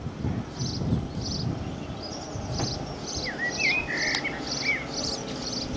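GWR 6400-class pannier tank working hard with an auto train, its exhaust beats coming steadily at about two a second and dying down after a second or so. Birds chirp several times about midway.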